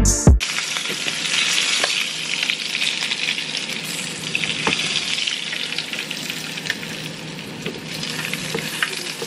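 Salmon fillets frying in butter in a frying pan, a steady sizzle, with a few sharp clicks as tongs lift the pieces out of the pan.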